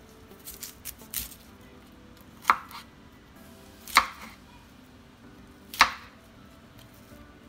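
Chef's knife chopping broccoli stems on a plastic cutting board: a few light taps in the first second or so, then three sharp knocks of the blade hitting the board, about a second and a half to two seconds apart.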